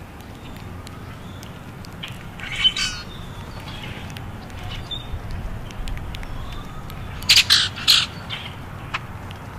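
Common grackles giving harsh, squawking calls: one about two and a half seconds in, then a quick burst of several louder calls near the end, over a steady low background rumble.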